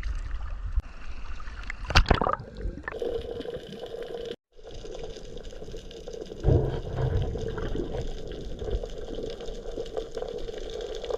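Underwater water noise picked up by a submerged camera, with a sharp click about two seconds in and a low thump past the middle.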